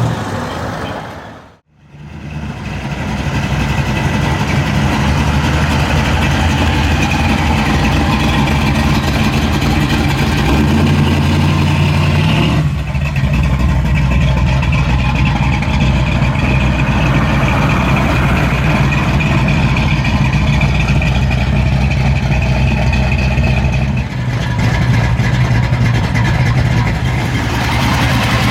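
Loud V8 muscle car engine running at a steady idle, cutting out briefly near the start, with its note changing twice later on.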